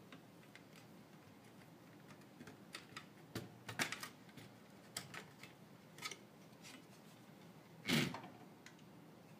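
Light clicks and taps of plastic and metal parts being handled inside a Dell OptiPlex 9020 Micro mini PC, with a louder clatter about eight seconds in as the blower fan and its plastic shroud come off.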